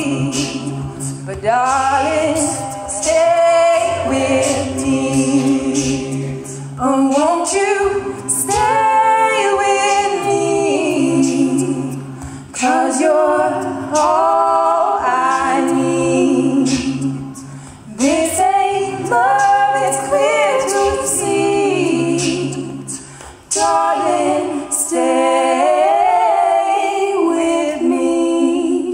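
A cappella group singing in close harmony, with female voices leading over a sustained sung bass line and a steady beat of vocal percussion clicks and snares.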